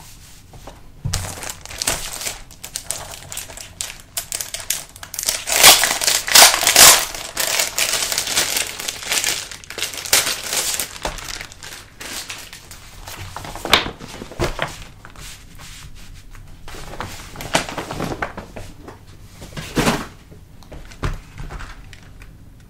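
Plastic packaging crinkling and rustling as it is handled, in irregular bursts, loudest about six seconds in, with a couple of sharp crackles later on.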